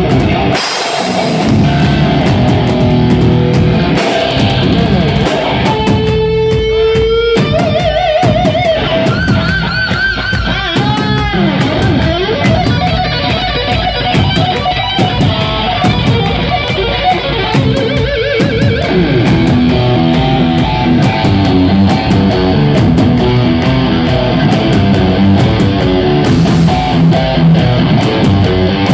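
Live heavy metal band led by distorted electric guitar through Blackstar amplifiers, played loud. From about six to twelve seconds in the guitar plays a lead line of string bends and wide vibrato, and it later settles into a repeating riff over the band.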